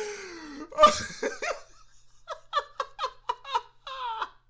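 A person laughing hard: first a drawn-out, sliding cry with a loud burst, then a fast string of about eight short bursts of laughter in the second half.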